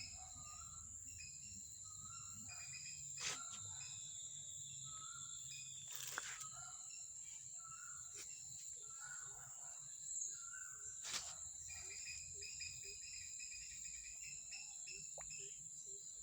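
Steady high-pitched drone of insects such as crickets, with many short bird chirps scattered over it. Three sharp clicks stand out: about three seconds in, six seconds in and eleven seconds in.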